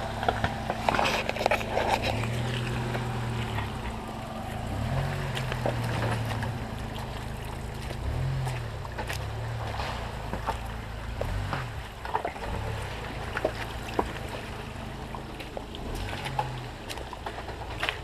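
Jeep Wrangler engines running at low revs as they crawl down a rocky creek bed, the hum rising and falling a little in pitch, with scattered clicks and knocks.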